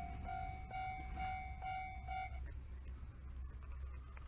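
Japanese railway level-crossing warning bell ringing its repeated electronic 'kan-kan' about twice a second, then stopping about two and a half seconds in, with a low rumble underneath.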